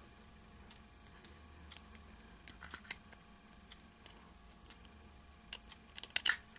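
Small clear plastic cosmetic pot handled in the fingers: scattered light clicks and taps, with a quick cluster of louder clicks near the end as its lid is opened.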